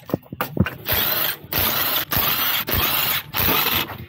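Cordless impact wrench on a car's lug nuts, running in five short rattling bursts of about half a second each, after a few sharp clicks.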